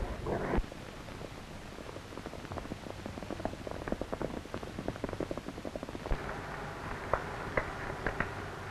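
A dog's snarling breaks off about half a second in, then a quick, uneven clatter of horses' hoofbeats from riders on the trail, sharper and louder from about six seconds in, over a steady soundtrack hiss.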